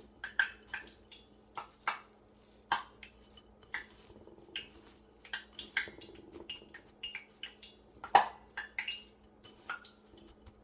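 Irregular light clinks and taps of a utensil against a bowl as chicken pieces are pressed and turned in a breadcrumb and sesame-seed coating, with one louder knock about eight seconds in.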